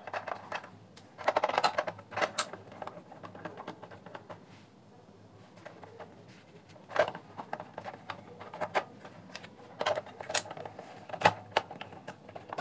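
Screwdriver turning out screws from a plastic radio case, with irregular sharp clicks and taps of the metal tip and screws against the plastic.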